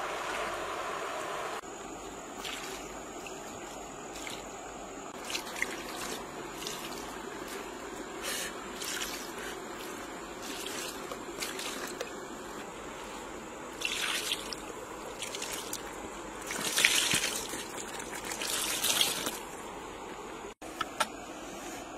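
Water trickling briefly as a container is dipped in the river, then a run of irregular wet squelches and drips as wet frogs and snails are handled and laid on banana leaves, louder a few times near the end.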